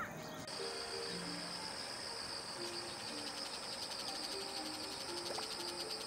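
A steady, high, pulsing trill of insects starts about half a second in and keeps on. Under it plays soft background music of slow, sparse held notes.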